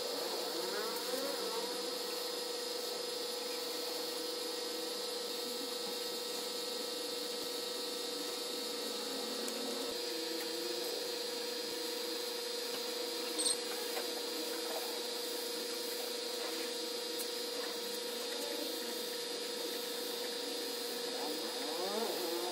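Compressed-air spray gun hissing as it sprays sanding sealer onto teak boards, over a steady hum. A brief sharp click about halfway through.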